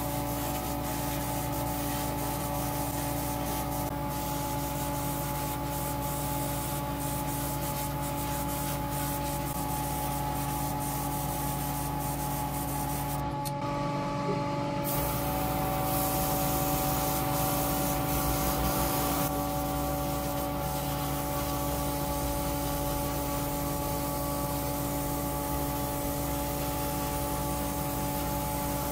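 Airbrush spraying paint with a steady hiss, over the constant hum of a spray booth's extractor fan. The sound breaks off briefly about 13 seconds in.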